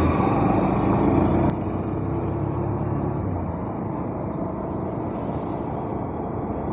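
Motorcycle engine running as the bike rides along and gathers speed. About a second and a half in, a click comes and the sound drops to a quieter, steadier rush.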